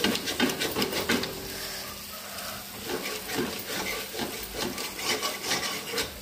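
A metal spatula stirring and scraping onions and ground masala as they fry in oil in a metal kadhai. The spatula makes repeated, irregular scrapes over a constant sizzle.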